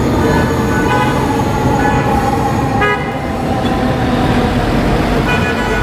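Busy road traffic with vehicle horns honking in several short blasts over a steady rumble of engines and tyres.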